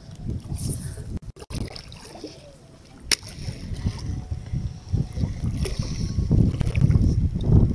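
Wind buffeting the microphone and choppy water splashing against an inflatable boat, growing louder in the second half. A single sharp click about three seconds in.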